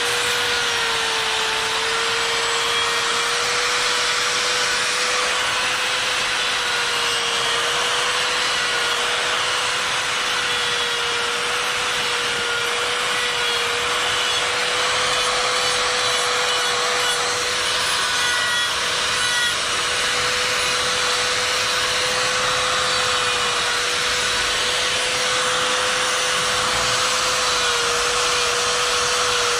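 Electric die grinder running continuously at high speed with a steady whine, its burr grinding into the wood of a bear carving. The pitch dips slightly now and then as the burr bites.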